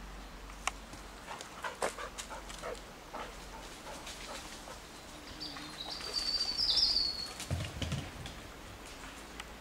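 Twigs and leaf litter crackling underfoot, then a high, thin warbling bird call lasting a second or two around the middle, the loudest sound here, followed by a brief low thump.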